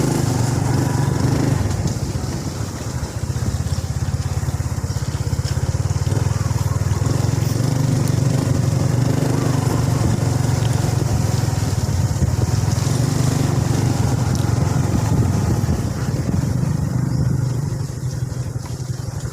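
A small vehicle's engine running steadily as it drives along a rough road, easing off briefly twice.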